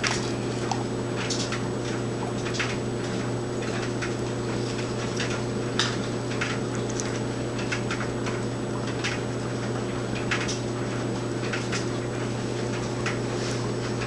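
Steady low hum with scattered light clicks and taps, roughly one a second, the sharpest a little before the middle.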